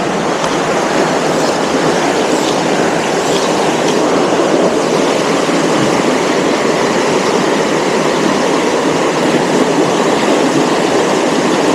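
Steady rush of flowing stream water close to the microphone, an even, unbroken noise.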